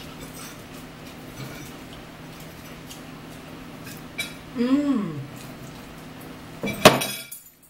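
Forks and cutlery clinking and scraping on plates during a meal, over a steady low hum. A short rising-then-falling vocal sound comes about halfway through, and a sharp loud clink near the end.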